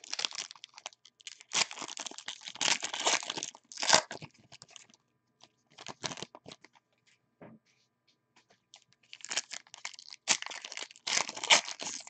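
Plastic wrapping on a sealed box of football trading cards being torn open and crinkled by hand. It comes in two rustling bursts, with a lull of scattered small crackles between them.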